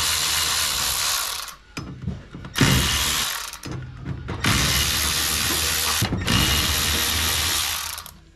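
Handheld power tool running in four runs of one to two seconds each, with short pauses between them.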